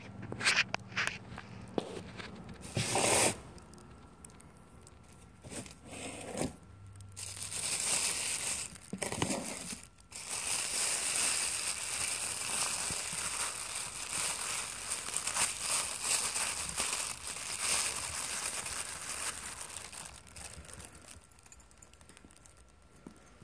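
Thin plastic sheeting crinkling and rustling as it is handled and gathered up, in short bursts at first, then a longer stretch of steady rustling that fades near the end.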